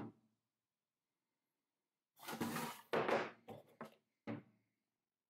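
Hard plastic plotter case being handled on a worktop: a click at the start, then, about two seconds in, scraping and rubbing as it is shifted, followed by a few short knocks.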